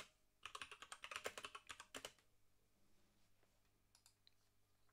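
Typing on a computer keyboard: a quick run of keystroke clicks that stops about two seconds in.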